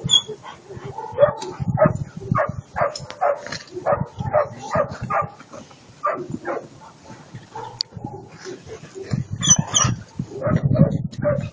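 A dog yipping and whining in a run of short, high calls, several a second, louder about nine seconds in.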